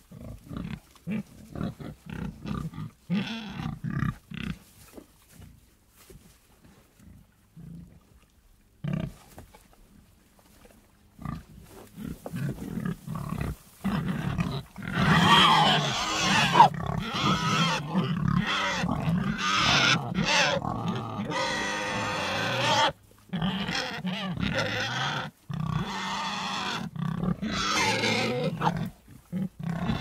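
Pigs grunting and squealing: scattered short calls at first, then about halfway in a louder, nearly unbroken run of overlapping calls.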